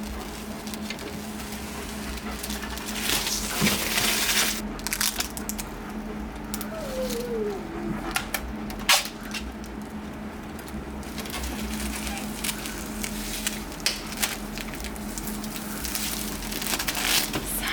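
Hands working on plastic computer parts: scattered clicks, crackles and rustling, with a short falling squeak about seven seconds in, over a steady low hum.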